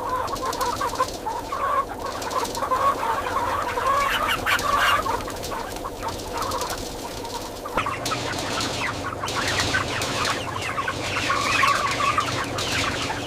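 A flock of chickens clucking and calling, many birds at once in a dense, continuous chatter. The background changes slightly about eight seconds in.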